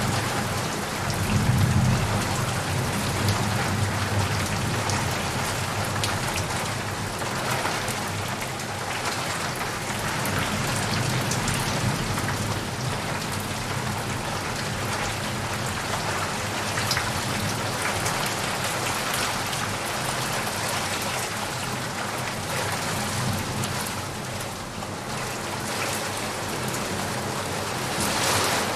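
Heavy rain falling steadily on leaves and puddles. A low rumble of thunder swells about a second in and fades away over the next several seconds.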